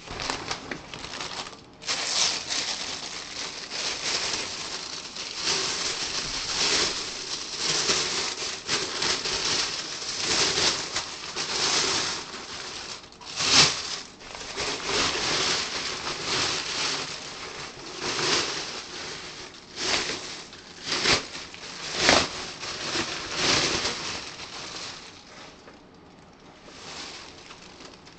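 Tissue paper and plastic wrapping rustling and crinkling in irregular bursts as it is handled, with the sharpest crinkle about halfway through. It dies down a few seconds before the end.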